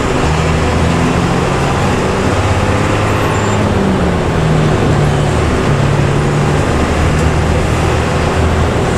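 Intercity bus engine with its growling 'ngorok' exhaust running under way, a steady low drone over road noise, its pitch stepping up and down several times as the revs change.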